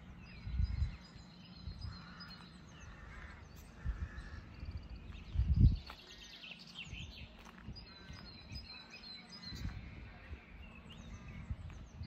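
Small songbirds chirping and singing over an outdoor background hiss. A few irregular low rumbles break in, the loudest about halfway through.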